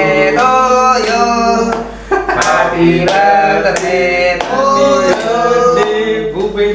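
A group of men singing a birthday song, with hand claps along the way.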